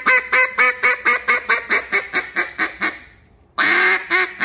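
A J-frame single-reed duck call blown in a fast run of quacking notes, about five a second, that trails off about three seconds in; a second, louder run starts near the end. The reed has just been trimmed, and the call now blows easily without squeaking, at what the caller judges about the right tune.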